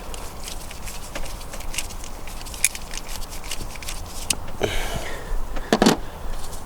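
Light metallic clicks and taps from hand tools working a bolt loose on an engine's camshaft housing, with a couple of louder knocks near the end.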